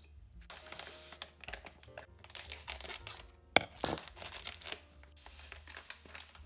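Poppy seeds pouring from a plastic packet into a stainless steel saucepan, a hiss of tiny seeds on metal, with the packet crinkling in the hand. A sharp click about three and a half seconds in.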